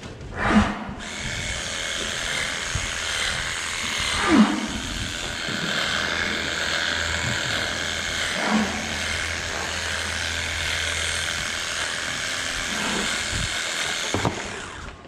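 A steady machine whir with an animal calling over it several times, each call sliding down in pitch; the loudest calls come near the start and about four seconds in.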